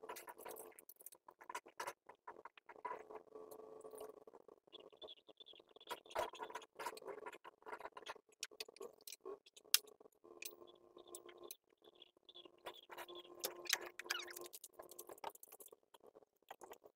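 Faint, fast-forwarded work sounds from timber carport building: a quick patter of clicks and knocks over a steady hum, pitched up by the speed-up.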